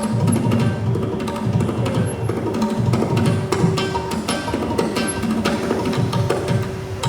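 Music with rapid, busy percussion strokes over sustained held tones.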